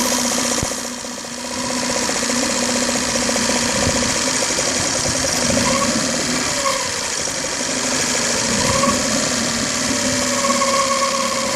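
Mercury F9.9M four-stroke outboard motor running steadily, with a whistle over the engine sound that wavers slightly in pitch.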